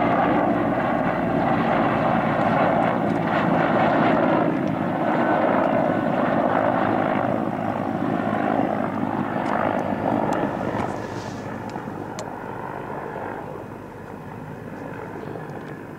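Helicopter flying past, a steady loud drone of engine and rotor for about ten seconds that then fades as it draws away.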